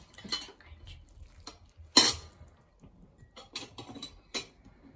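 Metal serving tongs clinking and knocking against a Saladmaster stainless steel skillet and ceramic bowls while noodles are served. One sharp knock comes about two seconds in, and several lighter clinks follow a little later.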